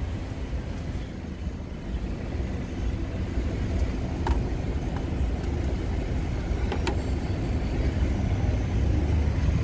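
Steady low rumble of road traffic on a busy street, growing a little louder toward the end. A few faint clicks come from the phone being handled over a metal tabletop.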